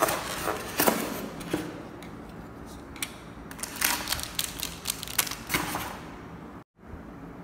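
Unpacking by hand: plastic toy-gun parts knocking and clicking against a polystyrene packing tray, with the crinkle of a small plastic bag of gel balls about four seconds in. The sound cuts out for an instant near the end.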